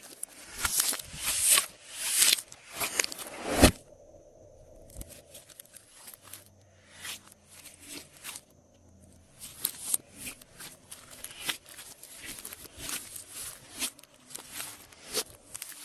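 Hands squishing and working glossy slime, giving quick sticky clicks and crackles. The sound is dense and loud for the first few seconds, goes quieter through the middle, and picks up again after about nine seconds.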